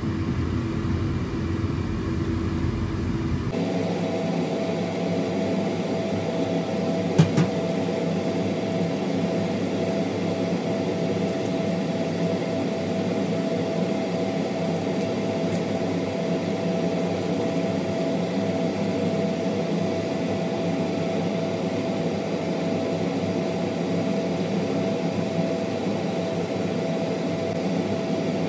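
A steady mechanical hum with a faint steady tone, its texture changing abruptly about three and a half seconds in, and one sharp click about seven seconds in.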